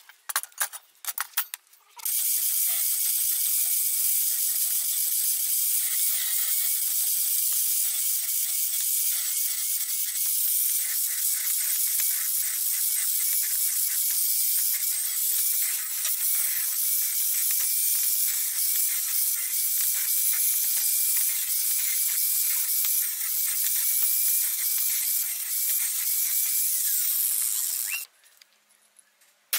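Angle grinder with an abrasive disc grinding the edge of a small steel plate, running steadily with a high whine. It starts about two seconds in, after a few metallic clinks, and cuts off abruptly near the end.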